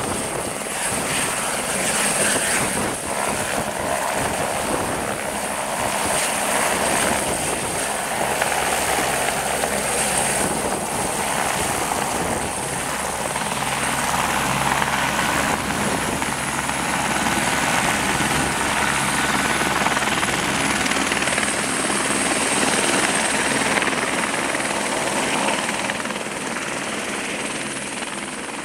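Airbus AS350 Écureuil helicopter hovering and manoeuvring close by: steady high turbine whine over the beat of the main rotor, easing slightly near the end.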